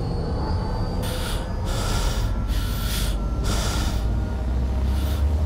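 Four heavy, noisy breaths, one after another from about a second in until about four seconds in, over a steady low rumbling drone. A thin high tone rises slowly and fades out about a second in.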